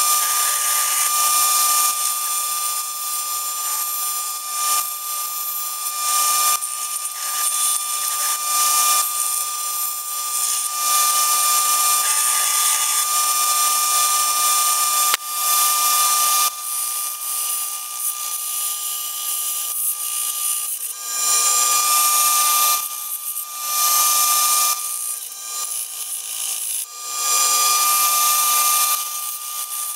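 Bench belt sander running with a steady whine while a wooden knife handle is pressed against the moving belt again and again. A rasping sanding noise comes and goes every second or few as the wood touches the belt and is lifted off.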